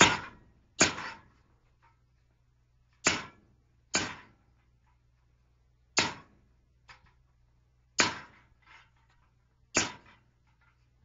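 Blacksmith's hammer striking hot steel on an anvil while forging a fishing gig: about seven ringing blows, often in pairs about a second apart, with a few lighter taps between them.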